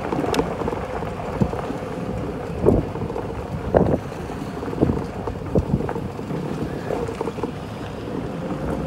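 Wind blowing across the microphone outdoors, with a few irregular knocks.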